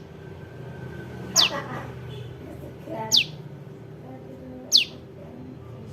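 Young prenjak lumut calling, a lure call for trapping: a sharp, high note falling steeply in pitch, given three times about a second and a half apart.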